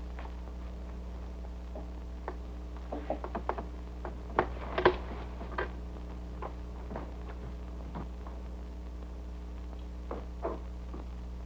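Low steady hum of an old film soundtrack, with scattered soft knocks and clicks. Most of the knocks come in a cluster about three to five seconds in, with another near the end.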